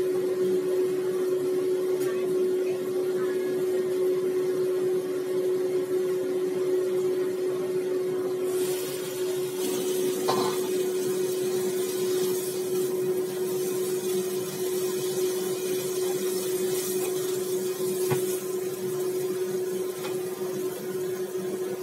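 A stir-fry of long beans and fried tofu sizzling in an uncovered wok, the sizzle coming in about eight seconds in when the lid is off. A steady low hum runs under it throughout.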